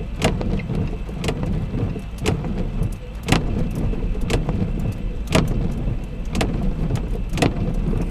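Rain ticking during a thunderstorm over a steady low rumble. Sharper drip ticks land about once a second, with fainter irregular ones between.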